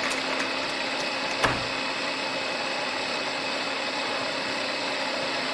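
Steady machine-like running noise, with one sharp knock about one and a half seconds in.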